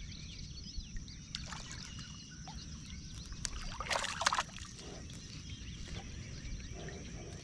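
Light water splashing and trickling at the side of a kayak as a hooked fish is brought in, with a short louder splash about four seconds in. A steady high hum runs underneath.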